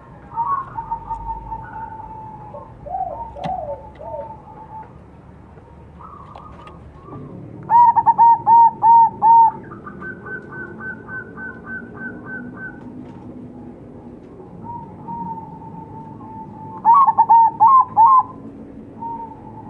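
Crossbred zebra dove (perkutut) cooing: two loud runs of about five quick coos, one about eight seconds in and another near the end. Between them come softer coos from other doves answering.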